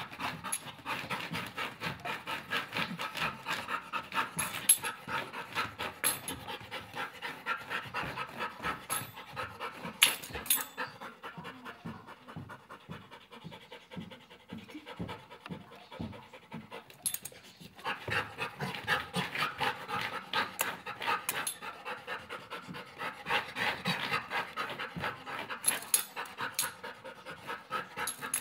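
Golden retriever panting in quick, even breaths, easing off to quieter, slower breaths for several seconds midway, then picking up again. A few sharp clicks stand out over the panting.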